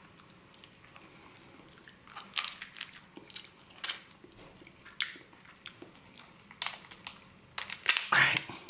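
Shell of an overcooked prawn cracking and crackling as it is peeled apart by hand, in irregular sharp snaps, the loudest cluster near the end.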